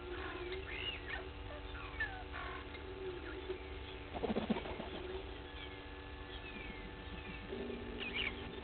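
Wild birds calling in the bush: a scatter of short whistled notes and pitch glides, with a brief lower call about four seconds in.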